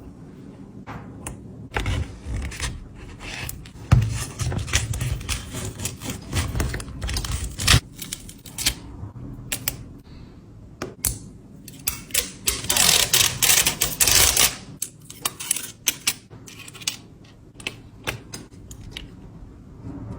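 Irregular clicking and tapping of small hard objects being handled. About two-thirds of the way through there is a denser rushing noise lasting about two seconds.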